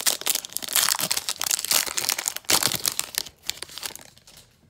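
Foil wrapper of an Illusions football card pack being torn open and crinkled by hand, a dense crackle that fades out about three and a half seconds in.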